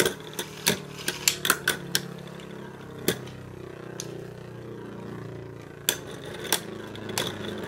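Two Beyblade Burst tops spinning against each other in a plastic stadium: a run of sharp plastic clacks as they collide in the first two seconds, then a few spaced hits over a steady, wavering whir of the spinning tops.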